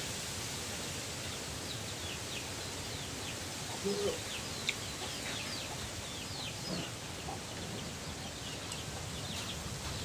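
Chicks peeping in quick, high chirps that fall in pitch, with a short low cluck about four seconds in, over a steady hiss.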